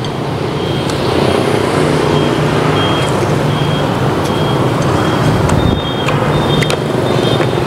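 A large vehicle engine running close by with a steady low rumble, over which a short high beep repeats about once a second, running into a continuous tone near the end. A few light clicks.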